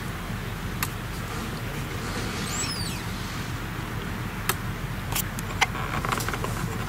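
Steady low rumble of distant traffic, with a few sharp clicks and a brief high, falling chirp about midway.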